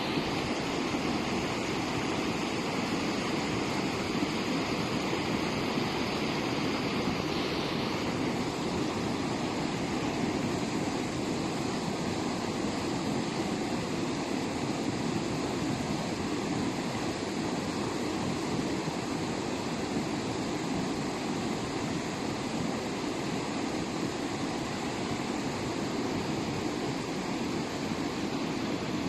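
Floodwater rushing in a steady, continuous wash of churning water. An extra high hiss in it drops away about eight seconds in.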